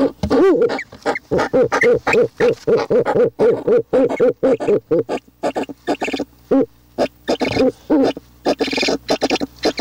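An animal calling: a rapid run of short, pitched, growly calls, several a second, throughout.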